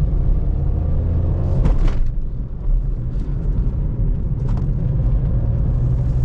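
Maruti Suzuki S-Presso's engine and road rumble heard from inside the car's cabin while driving, with a pitched tone rising over the first two seconds.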